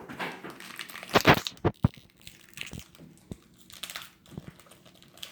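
A foil Pokémon booster pack being torn open and its wrapper crinkled, with a loud burst of crinkling a little over a second in, then two sharp clicks and lighter rustling.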